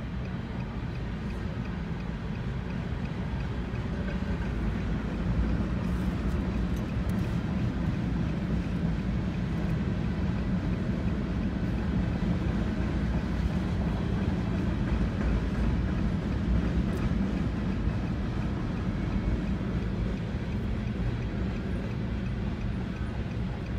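Freight cars of a mixed freight train, covered hoppers and tank cars, rolling past at a grade crossing: a steady low rumble of steel wheels on rail, heard from inside a car.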